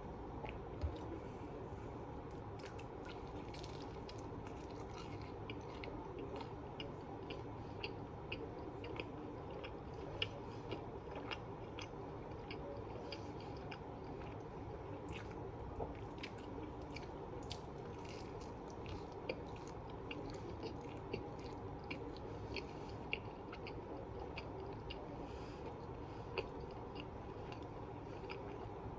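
A person chewing a mouthful of food, with many small mouth clicks and smacks scattered throughout over a steady low background hiss.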